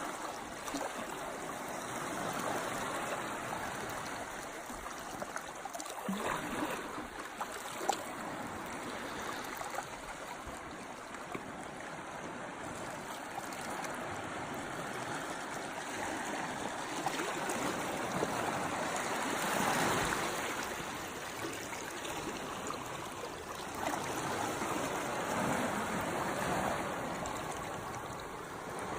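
Sea water washing and trickling among rocks in a continuous wash that swells louder every several seconds as waves come in. There is one brief sharp click about eight seconds in.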